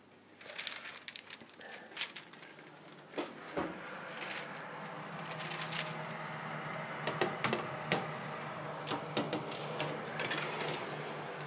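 A metal baking tray is picked up and slid into a built-in electric oven, with scattered clicks and knocks of the tray and the oven door. From about four seconds in, a steady low hum runs under the knocks.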